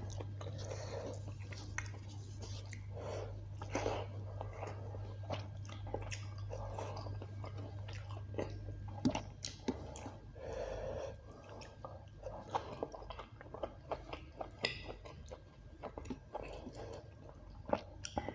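Close-up eating sounds: a person chewing and biting spicy beef curry with rice and green chilli, with many short wet mouth clicks and smacks. A steady low hum in the background stops about halfway through.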